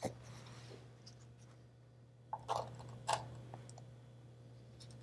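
A few light clicks and knocks as a grown crystal is lifted and set down onto a plastic LED display base, about halfway through, over a faint steady low hum.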